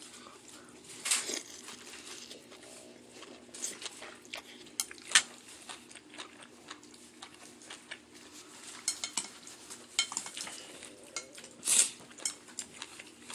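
Chopsticks clicking and knocking against a bowl of pho noodle soup, in scattered sharp clicks with a louder one about five seconds in. Short hissy sounds come about a second in and again near the end.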